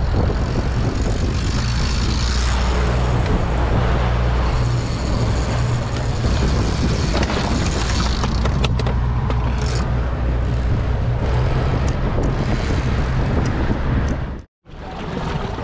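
A fishing boat's engine running steadily under way, a low drone mixed with rushing wind and water noise. The sound cuts out for a moment near the end.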